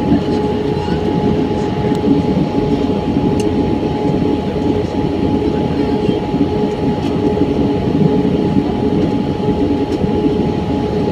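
Airbus A320 cabin noise heard from a window seat: the steady rumble of the jet engines and airflow, with a constant hum tone running through it.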